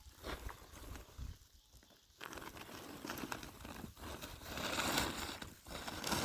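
Irregular rustling and crinkling with many small clicks, growing louder in the second half.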